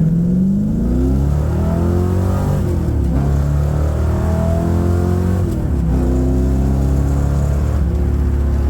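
Ford Mustang engine accelerating hard from almost a stop under full throttle. The engine climbs in pitch and drops back at two upshifts, about 3 and 6 seconds in. This is a hard break-in run to seat the freshly rebuilt engine's file-to-fit piston rings, which the mechanic expects to stop oil coming out of the exhaust.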